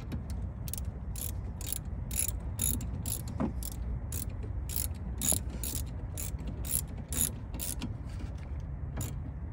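Socket ratchet clicking in quick back-and-forth strokes, about two clicks a second, as the rear brake caliper bolts are tightened; the clicking slows and stops near the end.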